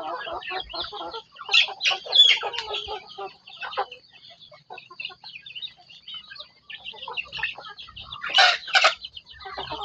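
Chickens clucking and calling in a busy run of short calls, with louder calls about two seconds in and again near the end.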